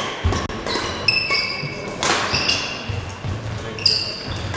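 Badminton rally: sharp racket hits on the shuttlecock every second or two, among short high-pitched squeaks of players' shoes on the court floor.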